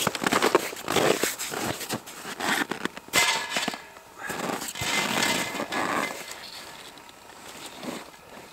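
Boots crunching and shuffling in snow, with clothing rustling, in a series of irregular crackly bursts that grow quieter over the last couple of seconds.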